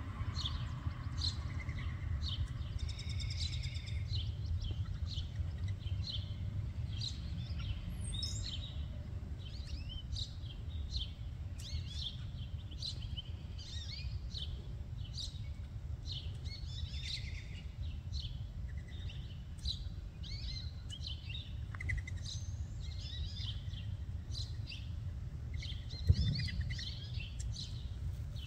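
Many short, high bird chirps and calls overlapping throughout, over a steady low rumble. A single sharp knock near the end.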